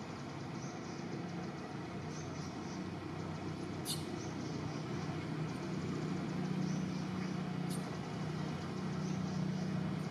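Steady low engine-like hum over a background of noise, slightly louder in the second half, with two brief high ticks about four and eight seconds in.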